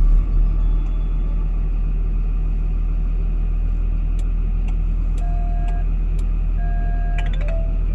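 Hyundai 145 excavator's diesel engine idling steadily, just started by a smartphone remote start. In the second half, a few short electronic beeps in two or three pitches and some faint clicks sound over it.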